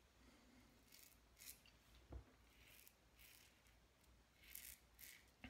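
Faint, short scraping strokes of a stainless steel safety razor with a Gillette Super Platinum blade cutting lathered stubble on the neck, about six strokes, with a soft low thump about two seconds in.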